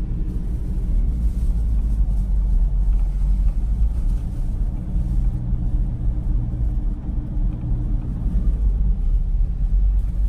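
Steady low rumble of a car on the move heard from inside the cabin: road and engine noise with a faint hum.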